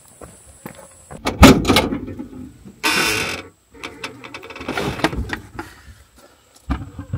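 Objects being handled, with a loud knock about a second and a half in, a short rustling scrape around three seconds, and another thump near the end.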